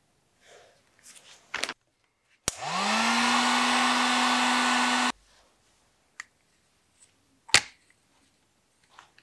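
Electric heat gun switched on, its fan motor spinning up and then blowing steadily for about two and a half seconds before it is switched off. Later comes a single sharp click.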